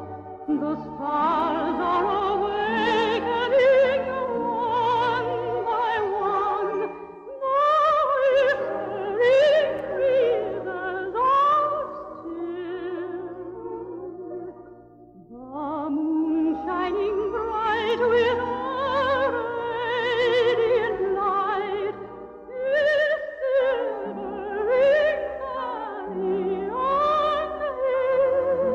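Operatic singing with heavy vibrato in long, held phrases over a sustained accompaniment, with a brief break about halfway through.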